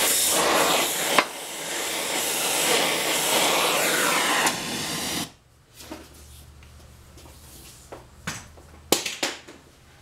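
Oxy-fuel gas torch flame hissing steadily while it preheats a steel crankshaft for welding, then shut off abruptly about five seconds in. A few light knocks follow near the end as the torch is put down.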